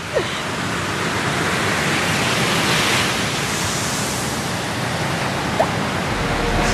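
Ocean surf breaking on the shore, a steady rushing wash of waves.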